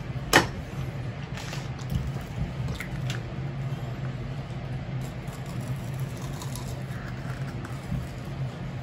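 A fork clicking against a plate: one sharp, loud click just after the start and a few fainter clicks later, over a steady low hum.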